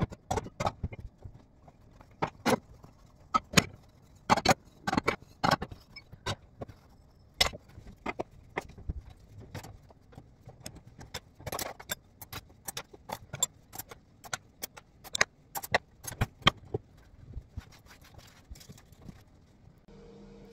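Metal cutlery and kitchen utensils clinking and clattering in irregular sharp clicks as washed dishes are dried with a towel and put away; the clatter stops a few seconds before the end.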